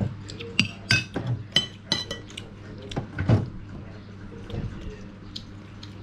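Metal spoons clinking and scraping on ceramic plates: several sharp clinks with a short ring in the first two seconds, then a duller, louder knock about three seconds in. A steady low hum runs underneath.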